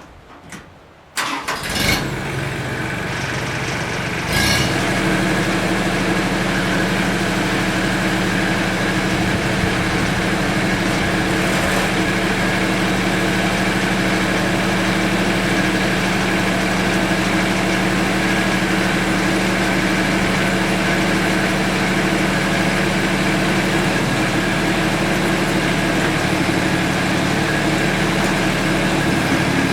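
Mahindra Max 24 tractor's diesel engine starting about a second in, then running. Around four seconds in the engine note steps up and holds steady.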